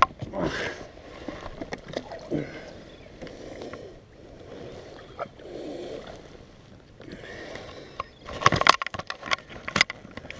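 Faint rustling and knocking of handling in a small boat, then a burst of sharp splashes and knocks about eight seconds in as a large striped bass is lowered into the water beside the hull.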